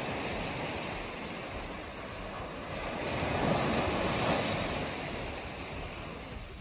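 Ocean surf breaking and washing up onto a sandy beach, swelling louder about halfway through as a wave breaks and runs up the shore.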